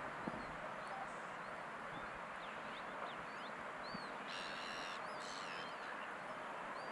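Lakeside outdoor ambience: a steady hiss with small birds chirping throughout, and two louder bird calls about four and five seconds in.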